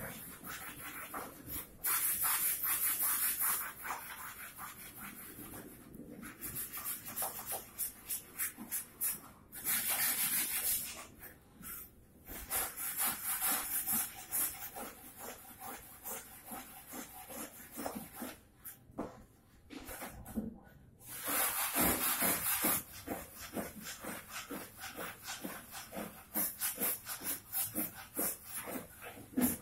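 Wooden chair frame being sanded by hand: quick rubbing strokes, several a second. Three times it is broken by a loud burst of hissing air lasting a second or two.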